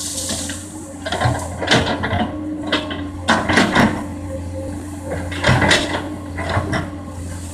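Komatsu PC200 hydraulic excavator working, its diesel engine humming steadily under bursts of knocking and scraping from the machine digging and clearing. The knocks come in clusters of a second or less, the heaviest about three and a half seconds in and again at five and a half.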